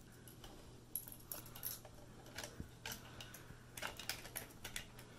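Faint, irregular metallic clicks and light jingling of small hardware (a thin steel safety wire, a pin and small metal rings) being handled and fitted together by fingers, starting about a second in.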